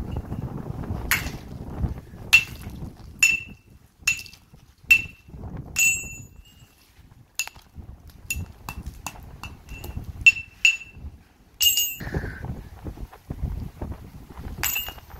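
A hard metal object struck about a dozen times at irregular intervals, each knock with a short metallic ring at the same pitch, over a low rumble of handling or movement noise.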